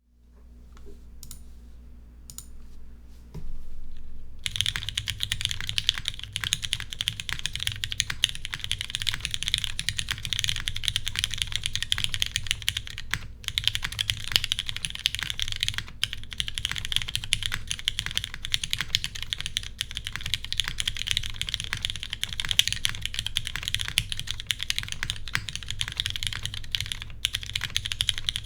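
Typing on a Keycult No.1 Rev.2 custom mechanical keyboard with vintage Cherry MX Black linear switches, lubed and filmed, in an aluminium plate with no foam, under GMK keycaps. A few light keystrokes come first, then from about four seconds in fast, continuous typing.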